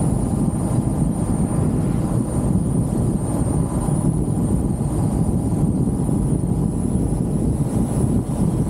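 Wind buffeting the microphone and road noise inside an open-topped Jeep on the move, a steady low rumble.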